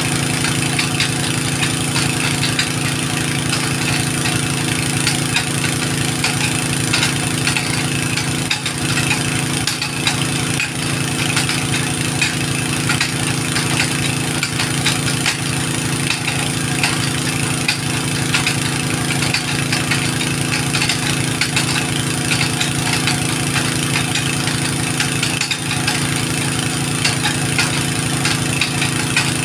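An engine running steadily at a constant speed, like an idle, with an even hum that doesn't change.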